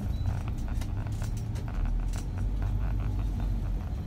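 Street traffic noise: a steady low rumble of passing vehicles and motorbikes, with frequent short clicks and rattles.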